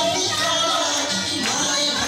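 Dance music with singing, playing steadily.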